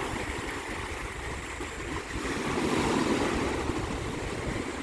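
Steady rush of sea water and wind around a small boat, swelling a little about two seconds in.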